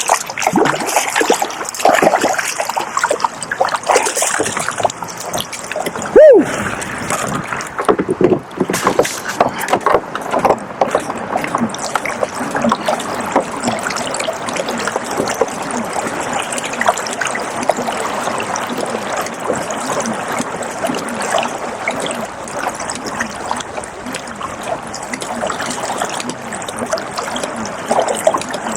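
Flooded river water rushing and splashing steadily, with one short, loud sound about six seconds in.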